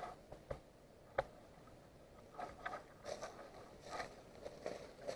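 Soft rustling of clothing and gear from someone moving carefully, in a few short patches, with two sharp clicks about half a second and a second in.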